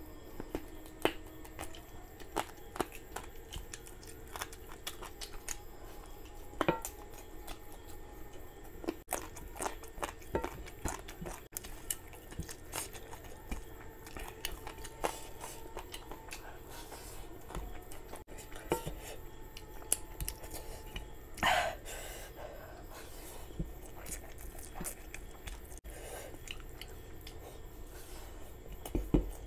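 Close-miked chewing of chicken curry and basmati rice, with frequent wet lip smacks and mouth clicks. Fingers also squish and mix the curried rice. One longer, louder mouth sound comes about two thirds of the way through.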